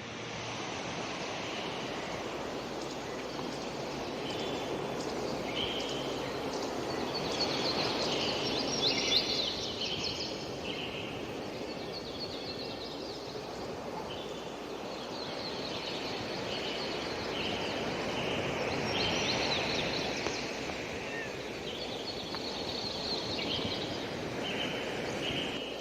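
Birds chirping again and again over a steady rushing noise that slowly swells and eases.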